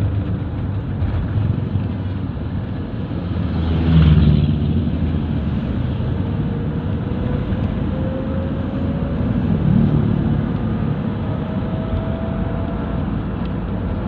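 Nissan NV350 van on the move, its engine and road noise heard from inside as a steady low drone that swells briefly about four seconds in. A faint whine rises slowly in pitch from about six to thirteen seconds in.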